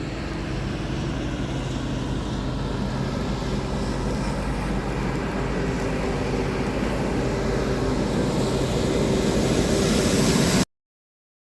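Wind rushing over the microphone of a moving bicycle rider, with a steady low hum underneath, growing gradually louder until the sound cuts out abruptly to silence about ten and a half seconds in.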